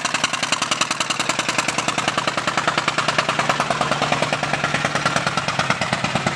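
Loud engine of a truck- or tractor-pull vehicle running, with a rapid, even exhaust pulse of about ten beats a second.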